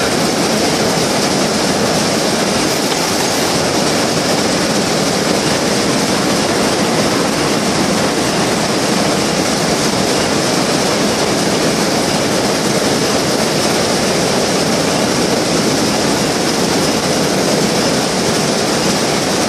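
Shuttleless towel looms running: a loud, steady mechanical clatter that does not let up.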